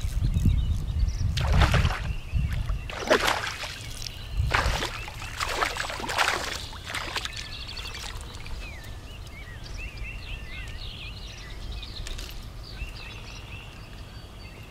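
Hooked bass splashing at the pond's surface, several splashes over the first seven seconds, with wind rumbling on the microphone at the start. Small birds chirp in the second half.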